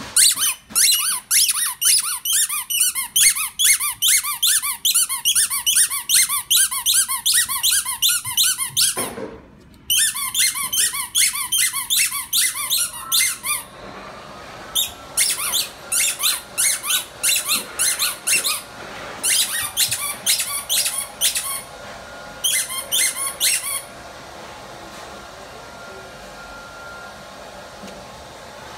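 Rubber squeaky dog toy squeezed over and over in a fast, even rhythm, about four to five high squeaks a second. After a short break the squeaking resumes, then thins into shorter, sparser bursts and stops a few seconds before the end.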